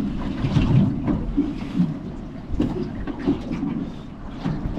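Low, uneven rumble of wind and water around a small boat, with several sharp knocks as the camera is handled.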